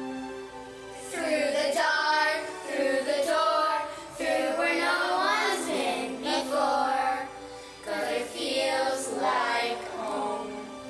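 A young girl singing a song over a backing track of held chords, in several phrases with short breaths between them.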